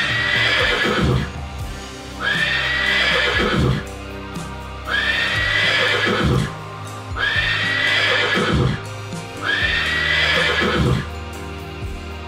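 A horse neighing: five whinnies about two seconds apart, each about a second and a half long, over background music.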